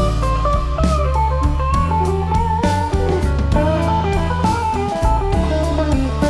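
Background music: a guitar melody over bass and a drum beat.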